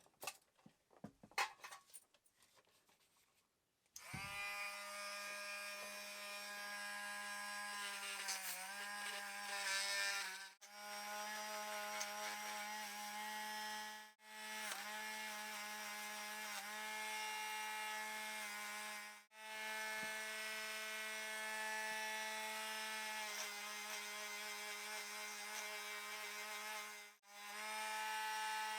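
A small electric motor starting about four seconds in after a few light handling clicks, then running steadily. It stops briefly four times and each time starts again, and its pitch dips a little now and then as if it is loaded.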